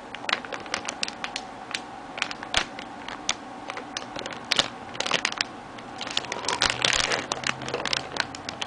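Plastic model kit runners being handled and turned over: irregular light plastic clicks and crinkling, thickest about seven seconds in.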